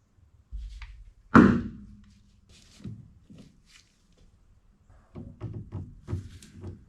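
Workshop handling noise: one loud, solid thunk about a second and a half in, as of a wooden piece or tool set down hard, followed by a few light clicks and then a quick run of lighter knocks and clatter near the end.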